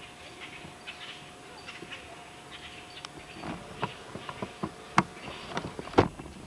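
Camcorder handling noise: a run of knocks and clicks as the camera is swung around, growing louder from about halfway through, with two sharp knocks near the end. A faint steady hum lies under the first half.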